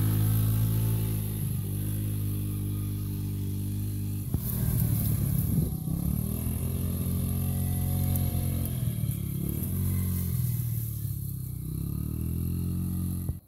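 ATV engines running: at first a steady, even engine note close by, then from about four seconds in the engine speed rises and falls again and again as the throttle is worked.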